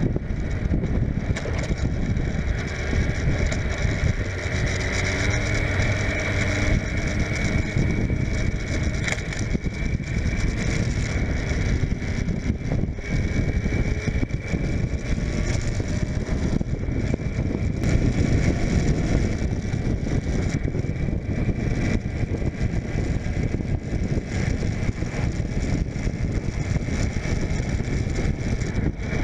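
Suzuki GSF600 Bandit's inline-four engine running steadily while the bike is ridden at road speed, with wind rushing over the microphone.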